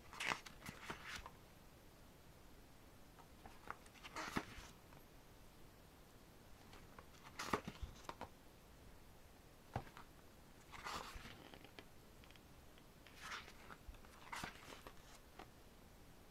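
Glossy pages of a photo book being turned by hand: a series of short papery rustles, one every few seconds.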